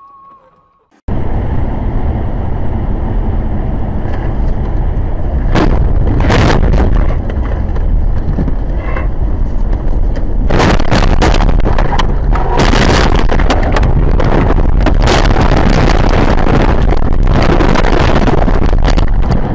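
Loud, continuous rush of wind and blowing snow buffeting a dash camera's microphone. It comes in suddenly about a second in, with harsher surges through the middle and near the end.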